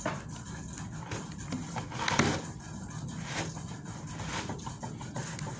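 Toddler biting and chewing corn on the cob: scattered short mouth smacks and crunches, the loudest about two seconds in.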